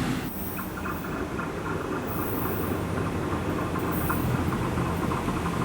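Diesel locomotive running with a steady low drone, with faint high tones coming and going above it. A louder rushing noise cuts off sharply just after the start.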